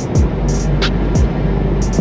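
Background music with a steady beat: deep bass kicks that slide down in pitch, a clap on the off-beats and ticking hi-hats.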